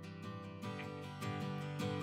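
Background music: a strummed acoustic guitar playing chords at a steady pace, growing louder.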